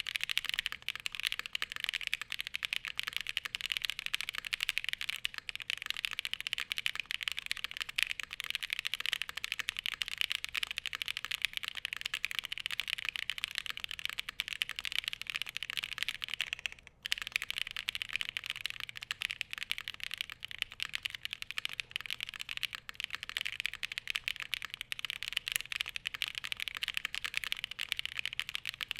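Fast, continuous typing on a Glacier80 custom mechanical keyboard with SOTC switches and thick foam inside: a dense patter of keystrokes with a brief pause about halfway through.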